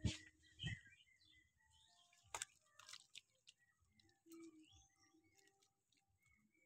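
Faint background birdsong of short chirps, with a few sharp knocks in the first three seconds, the loudest right at the start.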